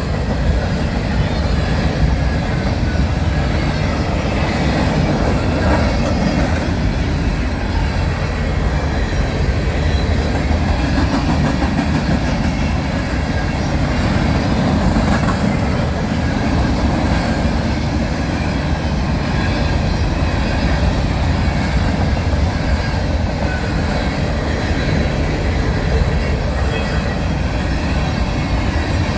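Freight train passing close by, its grain cars rolling steadily over the rails with the continuous noise of wheels on track.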